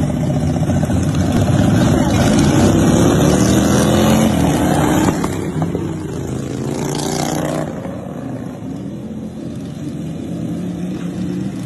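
Several racing lawn mowers' engines running hard as the pack passes close by, the pitches gliding up and down. Loudest a few seconds in, then fading after about the midpoint as the mowers pull away.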